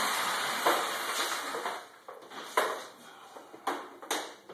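Rough scraping or cutting strokes against a tough, hard shell: one long stroke for about the first two seconds, then several short strokes with pauses between them.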